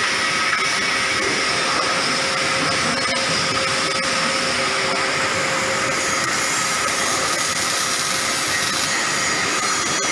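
Panasonic welding robot at work: a steady, even hiss and buzz with faint steady tones running through it.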